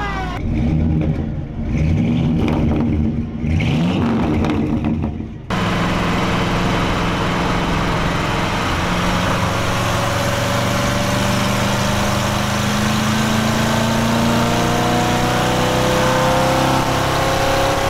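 Old pickup truck's engine revving up twice through the gears. About five seconds in, it cuts to the steady drone of the engine and road noise inside the cab at highway speed, the engine note slowly climbing.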